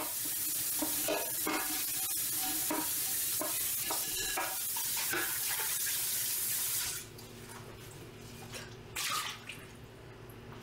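Kitchen faucet running into a sink while a stainless steel pot is rinsed and scrubbed with a sponge. The water shuts off about seven seconds in, followed by a brief clatter as the pot is handled.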